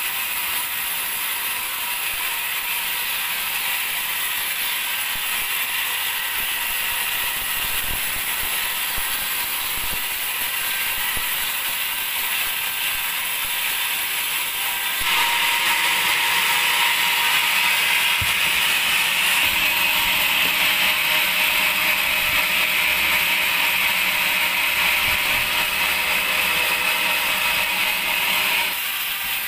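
Band sawmill running steadily, its sound stepping up louder and brighter about halfway through and dropping back just before the end.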